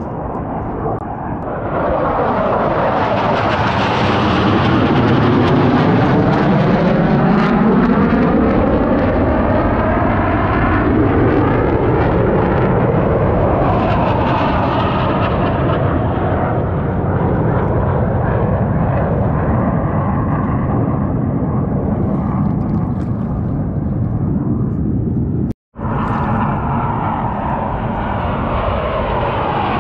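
Blue Angels F/A-18 Super Hornet jets flying past, their engine noise swelling about two seconds in and staying loud, with a sweeping, whooshing rise and fall in pitch as they pass overhead. The sound cuts out for a moment near the end.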